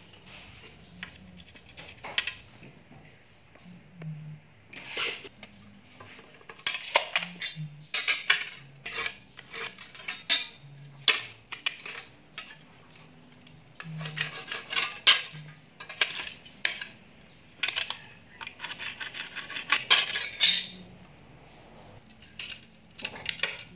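Steel ruler, square and tape measure clinking and sliding on glazed ceramic floor tiles, with pencil strokes scraping along the ruler as a tile is marked for cutting. The sound comes as irregular clicks and short scrapes, with quiet gaps between them.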